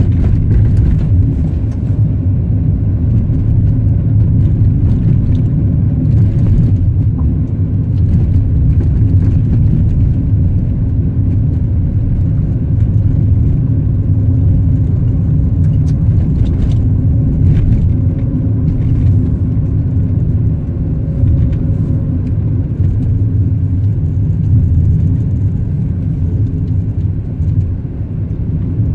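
Car driving along a road: a steady low rumble of engine and tyres, with a few faint clicks.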